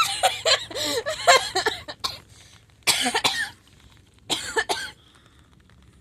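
A person coughing: a run of harsh coughs over the first two seconds, then two more single fits about three and four and a half seconds in. By the person's own account, the cough stopped the hiccups.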